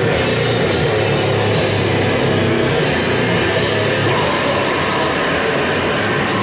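Loud, dense demo recording of a heavy band: distorted guitars and drums played as a continuous wall of noise, with no pauses.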